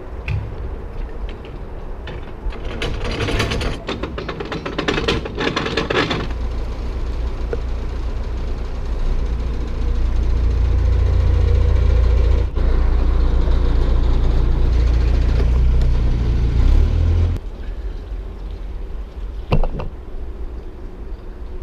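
Narrowboat's diesel engine running under way, a low rumble that swells louder for several seconds in the middle and then eases back. Wind buffets the microphone, with a crackle of it a few seconds in and a single knock near the end.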